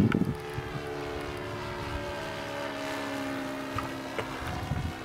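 Magnum .53 four-stroke glow engine of a radio-controlled model Spitfire in flight overhead: a steady propeller drone whose pitch drifts gently up and down.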